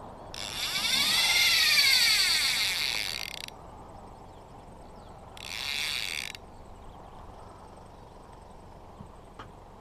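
Fly reel's click-and-pawl drag screaming as a hooked fish runs line off into the backing: one long run of about three seconds that rises and then falls in pitch, and a second, shorter burst about halfway through.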